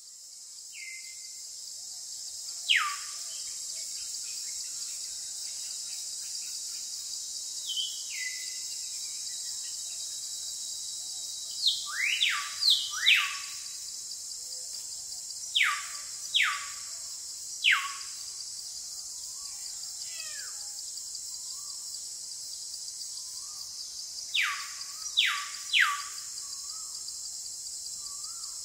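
Outdoor ambience: a steady high-pitched hiss with a bird's short, sharply falling whistled calls, about a dozen, singly and in quick runs of two or three. The sound fades in at the start.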